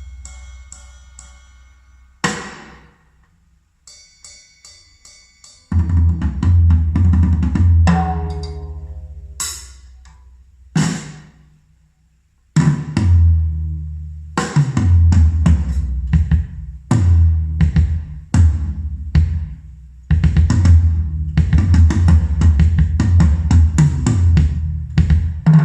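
Recorded drum music: heavy bass drum with snare and cymbal hits. It opens with sparse single strikes and ringing pitched notes, then settles into a steady driving beat from about halfway.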